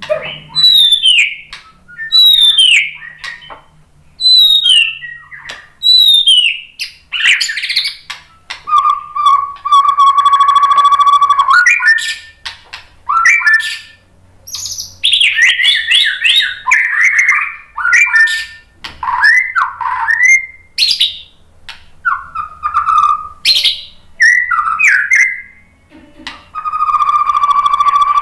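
White-rumped shama singing: a string of short downward-slurred whistles about once a second, then a long buzzy held note, quick varied whistled phrases, and another long buzzy note near the end.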